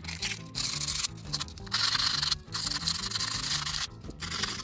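Fine sandpaper rubbed by hand over the armature of the compressor's small 12 V DC motor in a series of scratchy strokes with brief pauses, cleaning the armature. Background music plays underneath.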